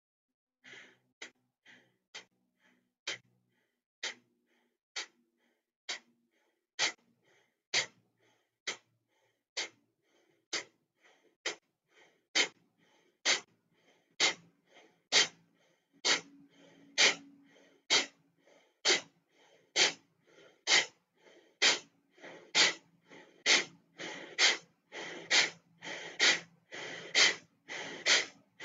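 Kapalabhati breathing: a woman's short, forceful exhales through the nose, each pushed out by snapping the abdomen back toward the spine. The puffs come about once a second at first, then quicken to about two a second and grow louder near the end.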